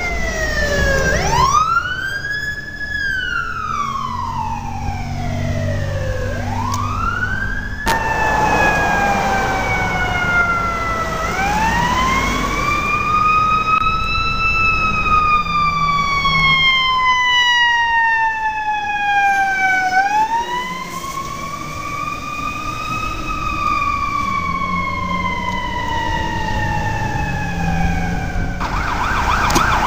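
Fire apparatus siren wailing, each sweep rising quickly and then falling slowly in pitch, over a low engine rumble. Near the end a faster pulsing siren sound comes in.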